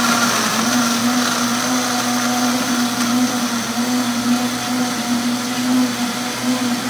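High-powered countertop blender running at a steady high speed, blending a thick fruit drink with ice: a loud, even whir with a steady hum.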